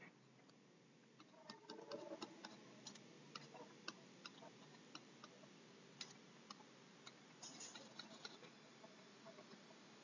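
Faint, irregular clicks and taps of a stylus on a writing tablet as words are handwritten, over near-silent room tone.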